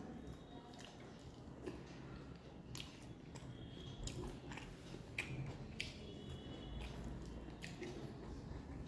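Close-miked chewing of soft food (dal, rice and fried egg), with scattered short wet mouth clicks and soft squishing as the food is mixed and torn by hand.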